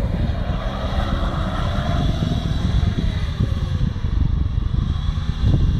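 Suzuki Jimny 4x4's engine revving hard as the vehicle slides and spins on snow; the revs climb and then drop off about halfway through.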